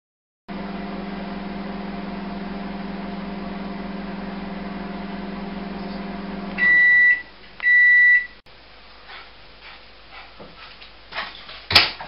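Microwave oven running with a steady hum, which stops about six and a half seconds in, followed by two loud beeps signalling the end of the cooking cycle. Faint clicks follow, then one sharp loud click near the end.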